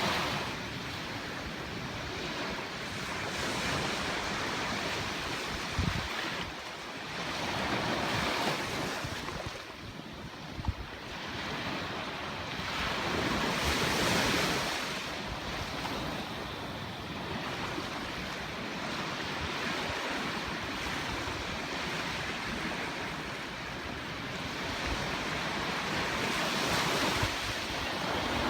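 Ocean surf washing onto a beach, swelling and fading every few seconds as waves break, with wind buffeting the microphone in a few low thumps.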